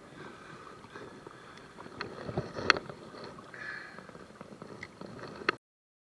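Quiet outdoor ambience by a river, with a few sharp clicks and knocks of handling fishing gear. It cuts off abruptly to silence about five and a half seconds in.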